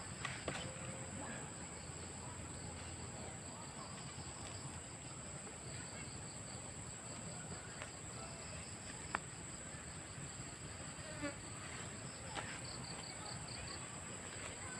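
Insects buzzing in a continuous high, steady drone, joined at times by a quicker pulsed chirping from another insect. A few faint clicks sound now and then.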